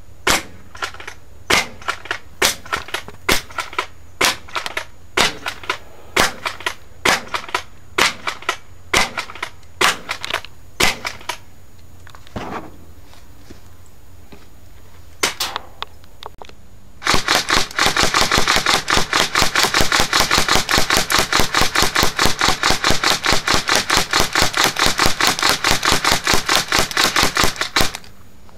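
Airsoft gun firing BBs at a riot shield: a string of single shots, about two or three a second, then after a pause a long, rapid fully automatic burst lasting about ten seconds that cuts off near the end.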